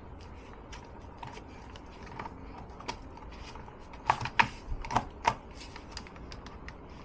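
Hard plastic clicks and knocks as a replacement Secretlab armrest is slotted onto the chair's arm, with a few louder clicks about four to five seconds in.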